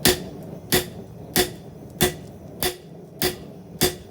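Hand hammer striking hot high-carbon steel on an anvil in an even rhythm: seven blows about two-thirds of a second apart, each with a short metallic ring. The steel is an old file being forged into a knife blade.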